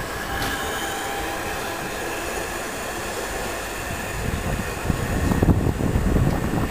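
Southeastern Class 465 Networker electric multiple unit pulling away, its traction equipment giving a whine of several steady high tones over running noise; the whine stops about five seconds in. An uneven low rumble of wind on the microphone grows over the last couple of seconds.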